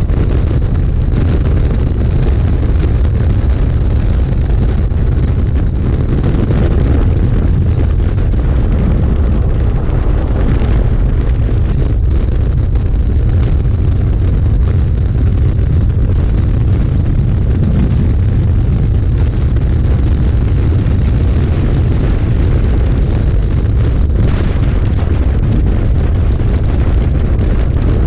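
Heavy wind buffeting on the microphone of a motorcycle at road speed, a steady low rumble, with the KTM 1290 Super Adventure S's V-twin engine running under it.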